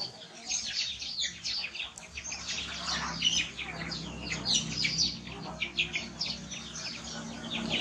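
Small birds chirping in a dense run of short, high chirps, with a low steady hum coming in about two seconds in.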